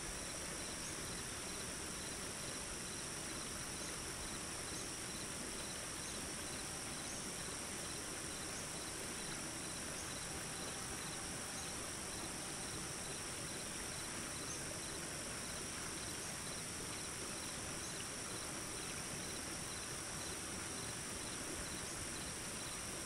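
Night chorus of crickets: a steady, high-pitched ringing that never lets up, over an even hiss.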